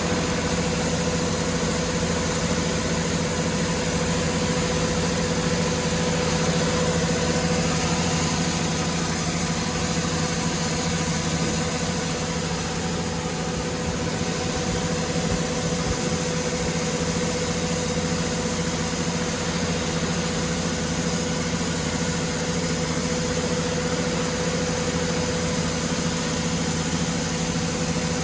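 Corn harvester's engine running steadily at an even pitch, with no change in speed.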